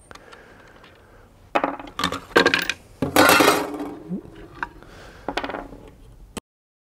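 Metal clinks and knocks as the arbor nut, washer and old blade come off a circular saw and are set down on a plywood table: a few sharp knocks about one and a half to two and a half seconds in, then a louder, longer clatter about three seconds in, then lighter clicks. The sound cuts out completely about half a second before the end.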